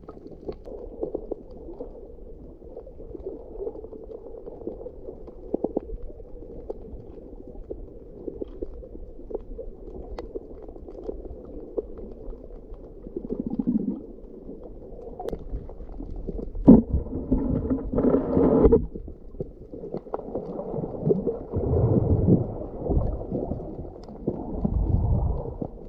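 Muffled underwater noise picked up by a submerged camera: a low rumbling water noise with scattered sharp clicks, swelling into louder rumbling surges from a little past halfway.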